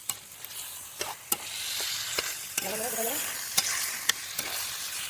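Chicken curry frying and sizzling in a pan while it is stirred, with sharp clicks of the stirring spoon against the pan every second or so.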